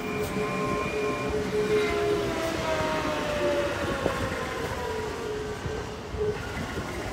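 A vehicle's whine falling in pitch as it passes on the road alongside, over steady rushing noise from riding a bicycle.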